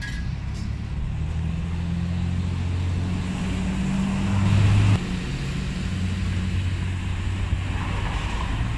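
Low engine hum of street traffic: a motor vehicle running steadily, swelling louder about halfway through and then dropping off suddenly.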